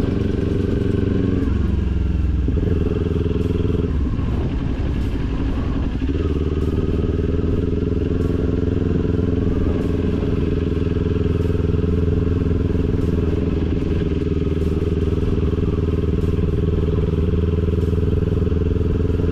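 Kawasaki Ninja 400's parallel-twin engine running under way at a steady cruise. Its note dips and recovers about a second and a half in, goes rougher for a couple of seconds around the fifth second, and then holds steady.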